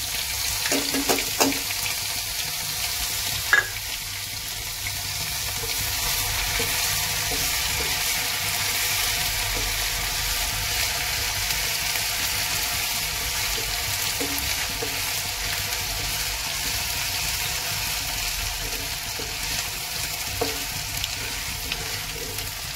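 Ginger-garlic-chilli paste and cumin seeds frying in hot oil in a kadai, a steady sizzling hiss. A slotted spoon stirs it, with a few clinks, the sharpest about three and a half seconds in.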